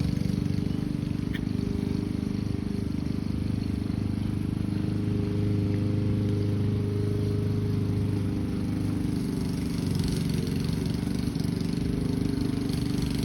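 Petrol lawn mower engine running steadily under load as the grass is cut.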